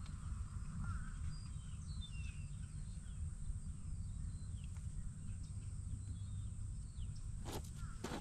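Faint scattered bird chirps over a steady low background rumble, with a couple of short knocks near the end.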